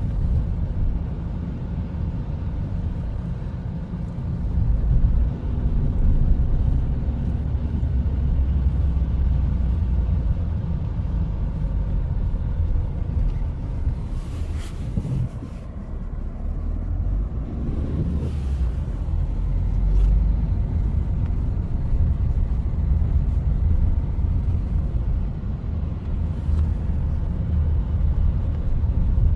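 Car engine and tyre rumble heard from inside the cabin while driving slowly on a ploughed road, with two brief noises about halfway through.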